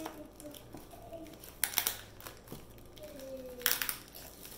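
Thin clear plastic film crinkling as it is peeled off a cardboard product box by hand, in two short bursts about two seconds apart with lighter rustling between.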